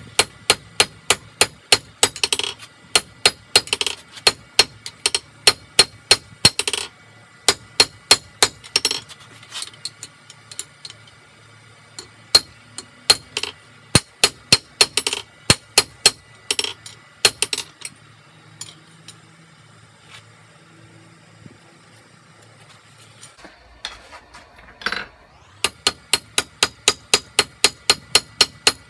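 Forging hammer striking leaf-spring steel on an anvil in runs of quick, regular blows, about two to three a second, each with a metallic ring. The runs are broken by short pauses, and a fast run comes near the end. A low steady hum underneath stops about two thirds of the way through.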